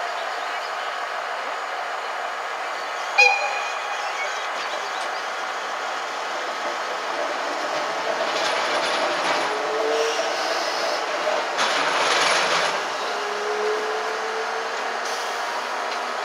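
ED90 Abt rack electric locomotive humming steadily, with one sharp metallic clank about three seconds in as it is uncoupled. It then pulls away, with two bursts of hissing and a faint rising motor whine.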